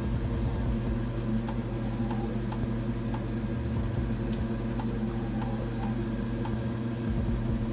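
Steady low machine hum, with faint soft clicks of someone chewing food.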